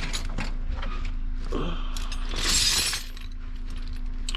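Loose metal hand tools such as screwdrivers clinking as they are rummaged through, with a louder jangling rattle of the pile about halfway through.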